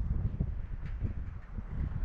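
Wind gusting across the microphone, a low, uneven rumble that rises and falls.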